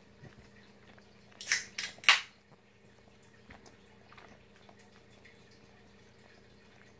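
Kuvasz licking and mouthing a hen's feathers: faint wet licking clicks, with three short loud bursts of noise about a second and a half in.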